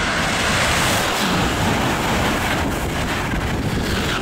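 Amtrak high-speed electric train passing close by at speed: a loud, steady rush of wheels on rail and rushing air that swells about a second in and holds until the train has nearly gone by.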